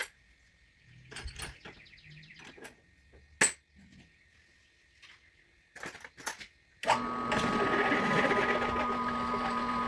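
A few light metal clinks and clicks, then about seven seconds in an electric drill starts up and runs steadily, drilling through a stack of steel hinge brackets.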